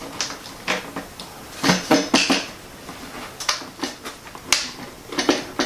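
Irregular clicks and taps of a screw being driven by hand into a model airplane, with small parts being handled, until the screw is tight.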